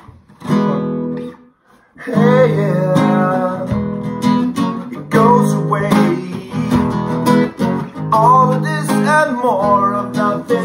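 Acoustic guitar strummed with a voice singing along. It breaks off briefly about one and a half seconds in, then carries on.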